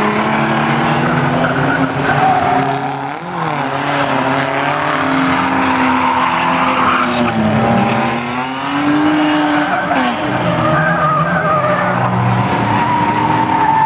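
Several rear-wheel-drive stock car engines racing at once, their notes overlapping and revs rising and falling as the cars run through the bend.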